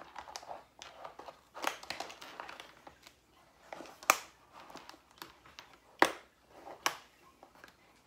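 Packaging crinkling and rustling as prepped meal dishes are handled and wrapped, with a few sharp clicks, the loudest about four and six seconds in.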